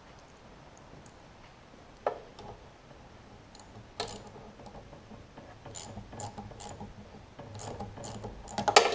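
Light metallic clicks and taps of a socket and screws being threaded in by hand on a lawn mower engine: a few single clicks at first, then busier ticking in the last few seconds with a louder clatter near the end.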